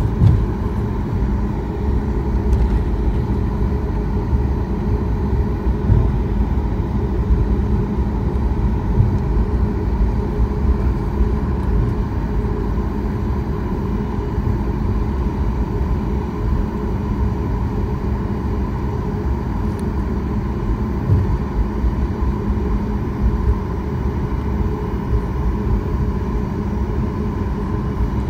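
Steady low rumble inside the cabin of a Boeing 737 MAX as it rolls on the ground, its engines running with a steady hum and a thin steady tone over the rumble.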